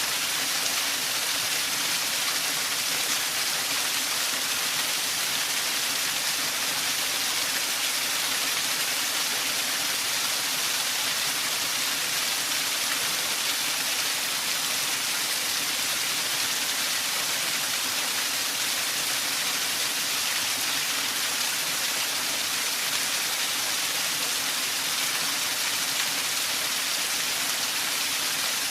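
Waterfall: a steady, unbroken rush of falling water, a hiss that sits mostly in the upper range with little low rumble.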